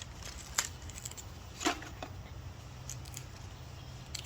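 A few sharp snaps of guava leaf stems and twigs as leaves are plucked off the tree by hand, two louder ones in the first two seconds and fainter clicks after, over a low steady hum.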